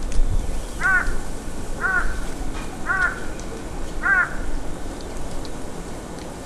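A crow cawing four times, about a second apart.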